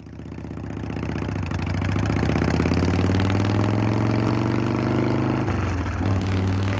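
Motorcycle engine fading in and running, its pitch climbing slowly for a few seconds, then dropping back about five and a half seconds in and holding steady.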